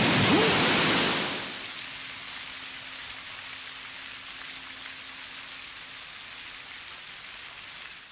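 Water rushing in a steady hiss, louder for the first second and a half and then settling lower. It is the sound of the eyes being washed clear of glass powder.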